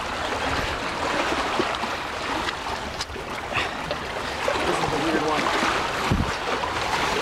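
Steady rush of wind on the microphone mixed with water lapping against shoreline rocks, with a couple of light knocks.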